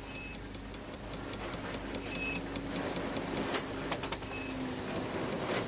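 Steam threshing set at work, a traction engine belt-driving a threshing machine: a steady mechanical hum with light, irregular ticking and a short high squeak about every two seconds.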